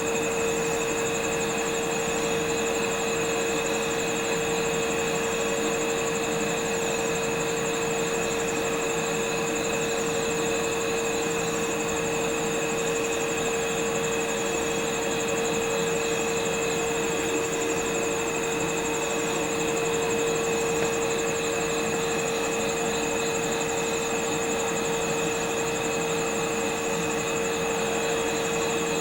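Steady electrical hum from EF64 electric locomotives standing at the platform with their equipment running: one clear, unchanging mid-pitched tone over a soft hiss, with a fainter high steady trill above it.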